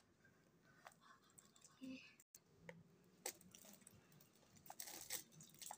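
Near silence, broken by faint, scattered clicks and soft taps from handling silicone pop-it fidget toys.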